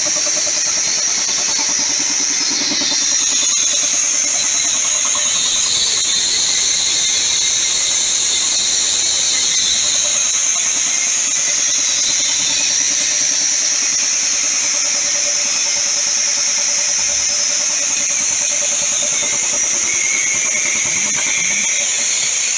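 Primax 40-pés belt-driven piston air compressor with a 10 hp three-phase electric motor running steadily under power, with a constant high-pitched whine over the machine noise. It is running properly.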